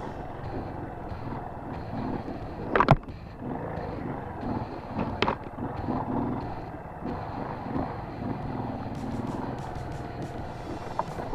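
Motorcycle engine running at low revs in first gear, slow going over rough trail. Two sharp knocks cut through it, about 3 seconds in and again about 5 seconds in.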